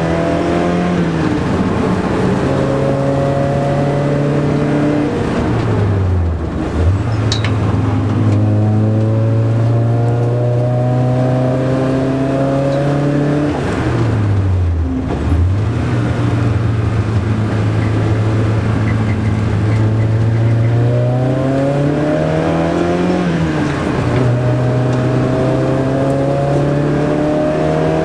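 Porsche 924 race car's four-cylinder engine heard from inside the cabin while lapping a circuit under hard throttle. Its pitch holds and climbs, then falls away steeply twice, about six and fifteen seconds in, as it brakes and downshifts before rising again.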